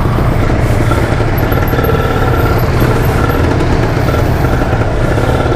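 Kawasaki Ninja motorcycle's engine and aftermarket exhaust running at a steady, unhurried pace while riding, a constant low drone with no revving.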